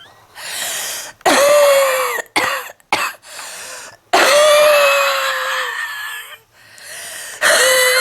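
A person's heavy smoker's coughing fit: three long, harsh, wheezy coughing bouts with a falling pitched edge, a few short sharp coughs between the first two, and rasping intakes of breath before each bout.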